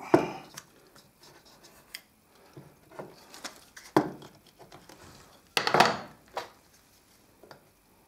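A small hammer knocking and pressing a re-glued veneer strip onto the edge of a wooden panel, then a chisel paring the veneered edge. There is a sharp knock at the start, softer knocks and scrapes after it, and a louder run of scraping cuts nearly six seconds in.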